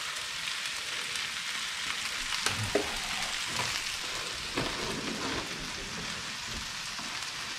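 Chicken and diced vegetables sizzling steadily in a cast iron skillet over a gas flame, with a few light knocks.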